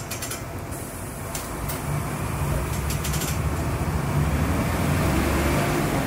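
Mercedes-Benz OF-1721 bus's six-cylinder turbo diesel engine running with the bus standing still, its low rumble growing louder and its revs climbing from about two seconds in, then held high.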